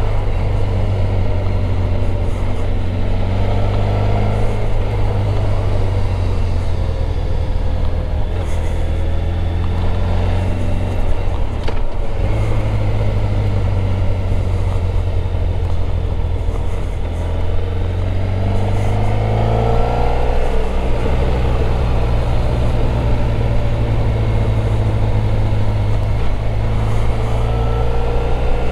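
Motorcycle engine under way, with a heavy steady rumble. The engine pitch rises several times as it accelerates and drops back at each gear change.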